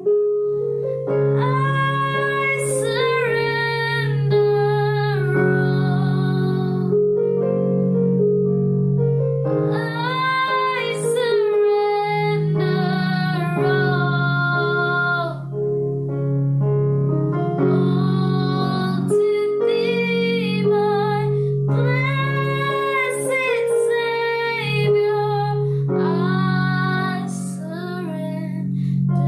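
A slow worship song: a high voice sings drawn-out phrases with vibrato over sustained keyboard chords. The singing pauses briefly between phrases while the chords hold.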